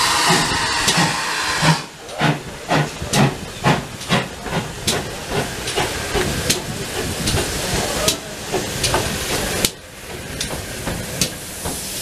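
Steam hissing from GWR 0-6-0 pannier tank no. 6430, loud at first, then a run of short sharp exhaust beats over the hiss as the locomotive moves off. The beats stop about ten seconds in, leaving a steady, quieter hiss.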